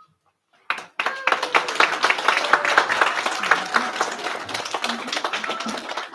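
A small crowd clapping. It starts suddenly about a second in and goes on steadily, with a few voices mixed in.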